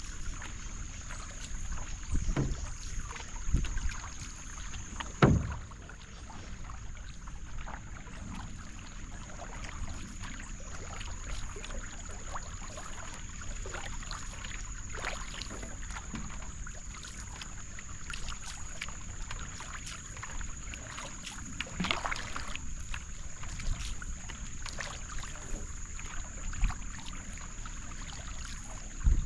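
Canoe paddle strokes: the blade dipping and splashing and water dripping and trickling as the canoe glides, with a few louder knocks, the loudest about five seconds in.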